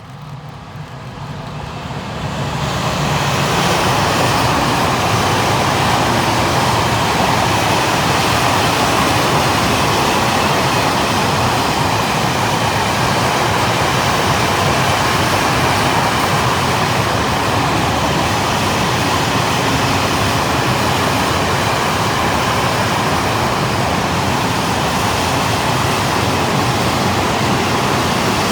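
A train passing close by, its wheels running on the rails as a loud, steady rush that builds over the first few seconds and then holds.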